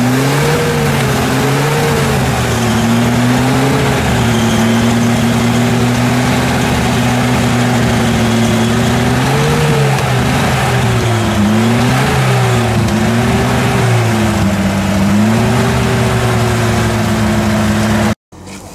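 Off-road 4x4's engine running under load as it crawls through mud, the revs rising and falling again and again; the sound cuts off suddenly near the end.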